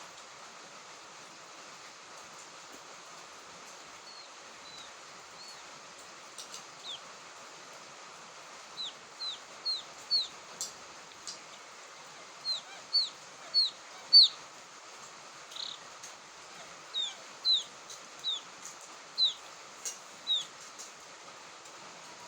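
Quail chicks calling: short, high peeping chirps, each dropping in pitch, coming in runs of three or four over a steady hiss.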